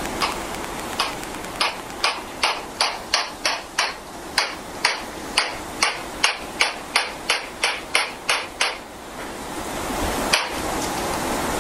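A string of about twenty gunshots, sharp cracks at two to three a second for about nine seconds, then one last shot a second and a half later, over a steady hiss. Nearly twenty rounds are being fired into one person, killing him.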